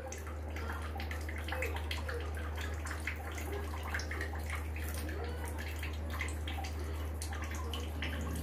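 Small wet scrapes and clicks of a knife peeling the skin off a mango, over a steady low hum.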